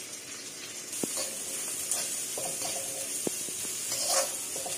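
Sliced onions, garlic and green chilli sizzling in hot oil in a wok, being stir-fried with a metal spatula. The sizzle grows stronger about a second in, and the spatula clicks and scrapes against the pan a few times.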